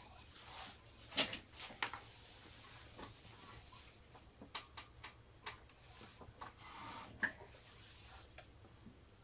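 Faint scattered clicks and light taps with short soft brushing passages, from watercolour painting: brush on paper and against the metal paint box.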